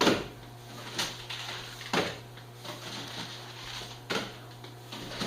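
Shrink-wrapped packs of beer cans being lifted off and set down, four sharp knocks about a second apart with a pause before the last, over a steady low hum.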